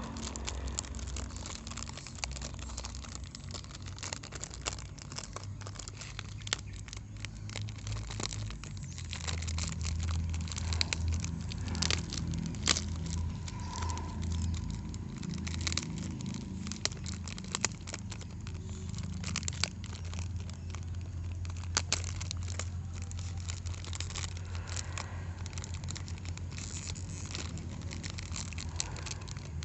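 A toy bulldozer's cardboard box and plastic packaging being torn open and handled: crinkling and crackling with scattered sharp clicks, over a steady low hum that gets louder about a third of the way in.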